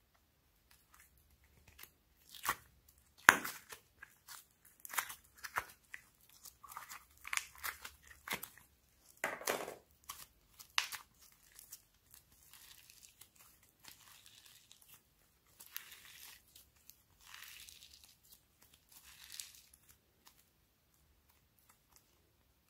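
Clay slime squeezed and pulled by hand out of a thin plastic tray: the plastic crinkles and the slime gives sharp sticky crackles. These are loudest in the first half, then turn to softer, hissing tearing sounds.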